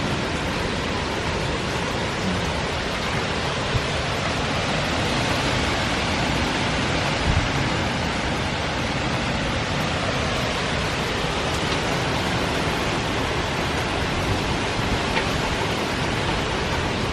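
Hurricane wind and heavy rain making a steady, even rushing noise, with water pouring from overflowing gutters.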